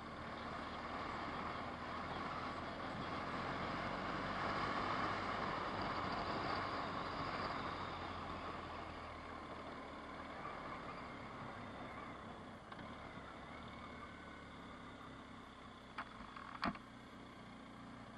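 Car's engine and tyre noise heard from inside the cabin while driving, steady and louder in the first half before easing off. Two sharp clicks near the end.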